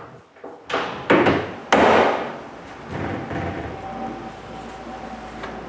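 Wooden cabinet door knocking against the cabinet as it is set on its hinges: two thuds about a second apart, the second louder, each trailing off. A faint steady hum follows.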